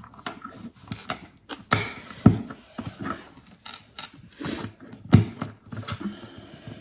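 Plastic LEGO bricks clicking and clattering as hands pick through loose pieces on a tabletop and fit them together: a string of irregular small clicks, with two louder knocks about two seconds and five seconds in.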